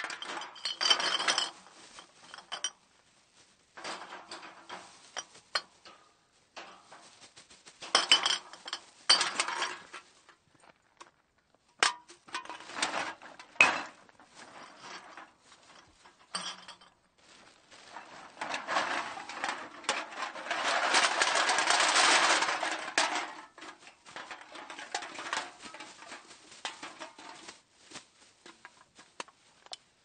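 A bag of cans being dumped out, the cans clattering and clinking against each other in irregular bursts. A longer, denser run of clatter comes about two-thirds of the way through.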